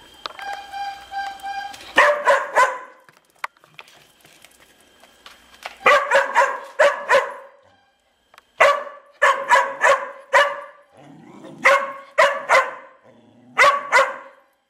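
Large black dog barking in five quick bursts of three to six barks each, beginning about two seconds in.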